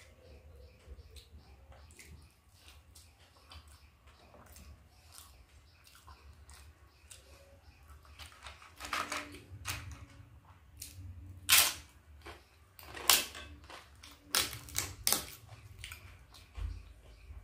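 Crisp papad (fried lentil wafer) being broken by hand and crunched while eating: after a quiet first half with faint mouth and hand sounds, about nine seconds in comes a run of sharp, irregular crunches and cracks, the loudest a little past halfway.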